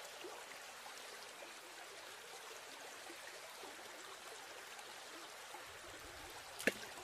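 Shallow rocky stream flowing: a faint, steady rush of water. A single sharp click sounds near the end.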